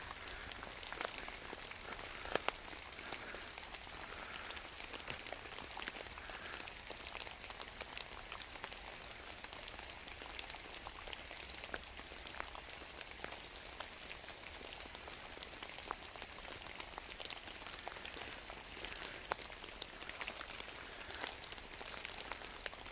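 Steady rain falling, an even hiss peppered with many sharp ticks of single drops striking close by, a few standing out above the rest.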